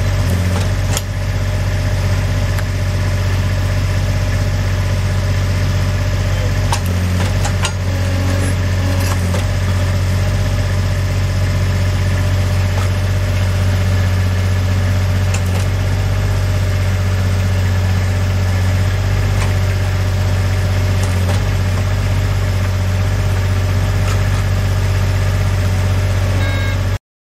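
Compact loader's engine running steadily while its stake-puller attachment pulls tent stakes, with a few short knocks about a second in and again around seven to nine seconds in. The sound cuts off suddenly near the end.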